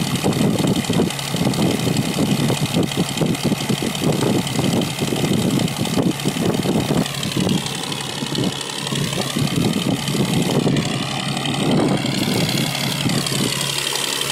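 Ferry boat's engine running with a steady hum, under gusts of wind buffeting the microphone and the rush of water along the hull.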